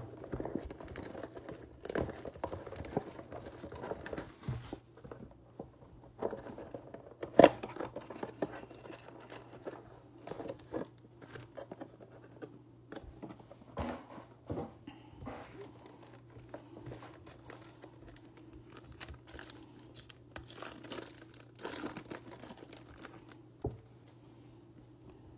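Plastic wrapping crinkling and tearing as a trading-card blaster box is unwrapped, then cardboard and card packs handled and torn open, with irregular crackles and one sharp snap about seven seconds in.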